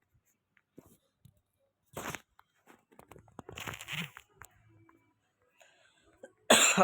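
A person coughing in separate short bursts: one about two seconds in, a longer one a second or so later, and the loudest near the end.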